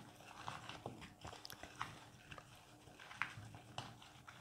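Faint, scattered clicks and crunches of raw vegetable chunks (carrots, onions, green peppers) knocking together as they are tossed by hand in a bowl.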